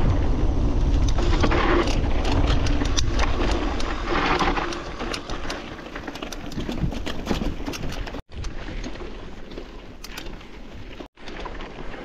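Mountain bike riding over a loose gravel and stone forest track: the tyres crunch and tick over stones, with frame rattle and a low rumble on the handlebar-mounted mic. The sound drops out briefly twice near the end.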